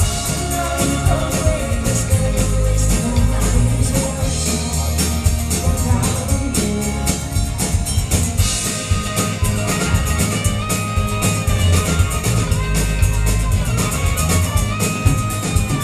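Live band playing an instrumental passage: electric and acoustic guitars, bass and drum kit. From about ten seconds in, a harmonica plays a lead line of held notes.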